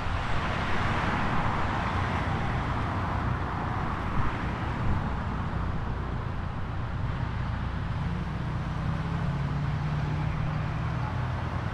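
Road traffic noise: a passing vehicle's tyre hiss in the first few seconds, then a low steady engine hum in the second half.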